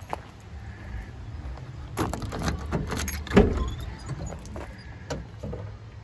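A cargo van's sliding side door being unlatched and rolled open: a quick run of clicks and clunks, the loudest about three and a half seconds in, over a low steady rumble.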